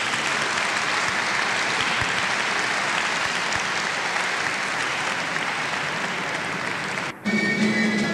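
Audience applauding, a dense steady clapping. About seven seconds in it is cut off abruptly and band music starts.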